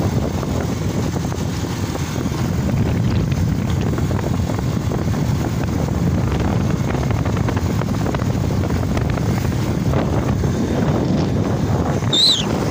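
Steady rumbling wind on the microphone of a moving vehicle travelling along a road, with the vehicle's running noise underneath. A short high chirp rises and falls near the end.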